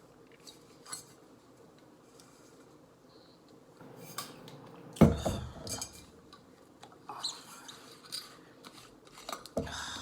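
Dishes and utensils being handled: scattered clinks and knocks that pick up after a quiet start, with one loud knock about five seconds in.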